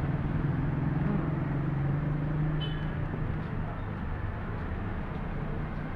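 Street traffic: a vehicle engine's low, steady hum over general traffic noise. The hum fades after about three seconds, and there is one brief high-pitched sound near the middle.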